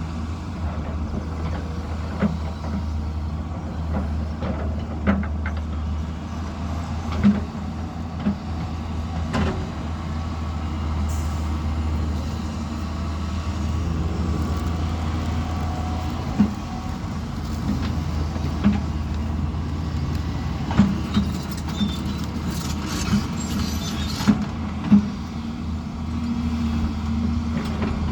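Diesel engine of heavy earthmoving equipment running steadily at work, with sharp knocks and clanks at irregular moments.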